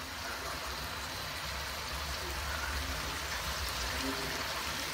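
Pieces of meat frying and bubbling in oil and juices in a wok, a steady sizzle, over a low hum.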